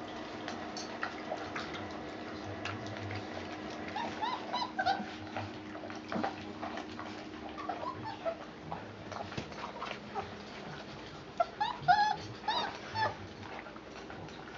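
Four-and-a-half-week-old puppies whimpering and yipping in short, high cries that bend in pitch. They come in bunches about four seconds in, again around seven seconds, and loudest near twelve seconds, with light scuffling of paws on puppy pads in between.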